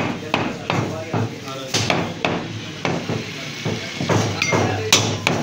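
Butcher's cleaver chopping mutton on a round wooden chopping block: a quick series of sharp chops, about two to three a second.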